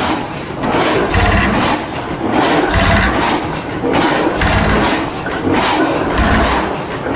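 Large horizontal stationary gas engine running: a deep thump about every second and a half, with the clicking and clatter of its valve gear and igniter linkage between the beats.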